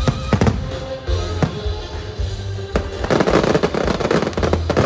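Aerial fireworks bursting: a few sharp bangs in the first three seconds, then about two seconds of dense crackling from many small pops of crackle stars, over background music.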